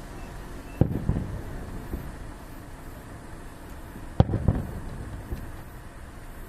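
Aerial fireworks shells bursting: two loud bangs about three and a half seconds apart, each followed by a rolling echo and a few smaller pops.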